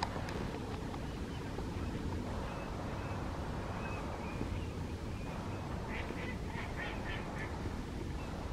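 Flock of northern lapwings calling in flight: scattered short, thin calls, then a quick run of about half a dozen calls near the end, over a steady low rumble.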